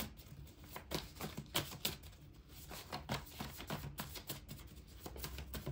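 Tarot cards being handled by hand: an irregular run of light taps and clicks of cards and fingertips on the table.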